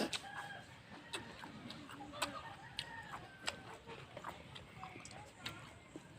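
Chickens clucking faintly in the background, with scattered short clicks throughout.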